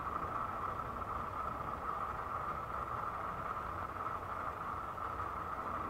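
Twin-engine jet airliner flying high overhead: a steady, distant engine rumble with a steady hiss.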